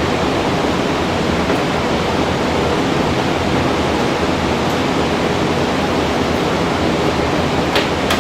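Steady, even rushing noise, like a fan or air mover, with a couple of faint clicks near the end.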